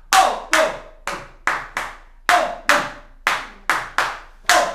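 Hand claps beating out a five-stroke Cuban clave rhythm, repeated about twice, each clap sharp with a short hollow ring.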